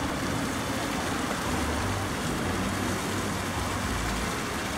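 Steady outdoor background noise: an even rushing hiss with a low rumble underneath.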